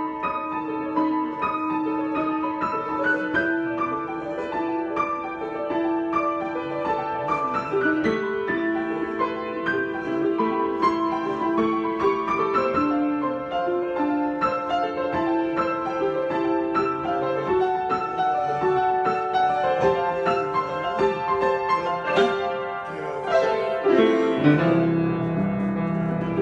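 Solo piano improvisation: a held melody line moves over sustained chords, and a new chord with deeper bass notes comes in near the end.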